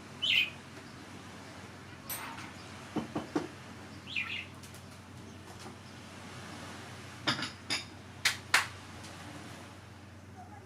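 Two short bird chirps over a steady low hum, with a scattering of sharp clicks and knocks, several close together near the middle and end.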